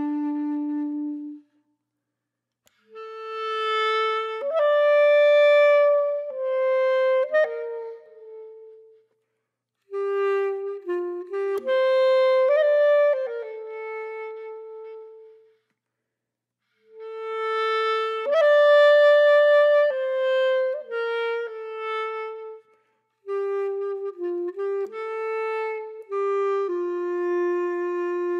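Background music: a slow solo melody on a single wind-like instrument, played in phrases of sustained notes with short silent pauses between them.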